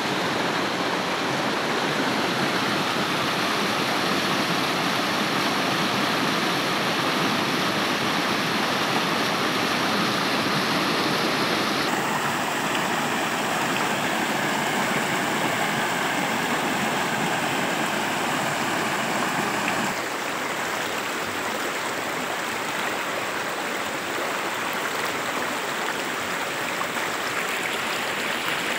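Steady rushing of water. The noise changes character abruptly about twelve seconds in and again about twenty seconds in.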